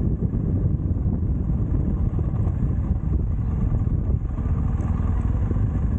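BMW R1200GS motorcycle's boxer-twin engine running, a steady low rumble.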